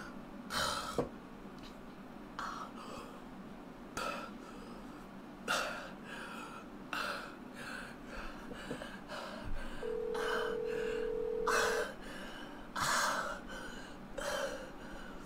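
A man gasping and breathing hard in short, sharp breaths, one every second or two, in a panic. About ten seconds in, a telephone ringback tone sounds for about two seconds from the phone's speaker as an outgoing call rings.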